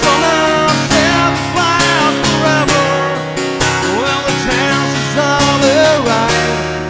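Man singing to a strummed acoustic guitar, a solo acoustic song.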